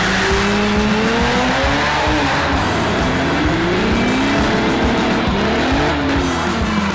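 Demolition drag racing car engine revving, its pitch rising and falling several times, over background music with a steady beat.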